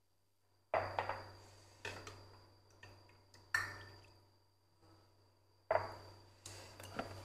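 A metal ladle pouring fresh liquid pig's blood into small ceramic bowls: a series of short, sharp splashes and light clinks of the ladle against the bowls, each dying away quickly.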